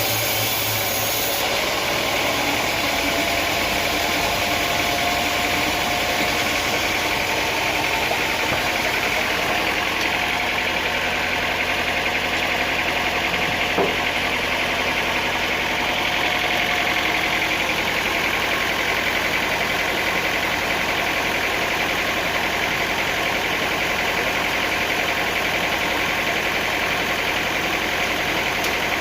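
Sawmill machinery running steadily, an engine-like drone that does not rise or fall, with a faint held tone for a while and a single sharp click about halfway through.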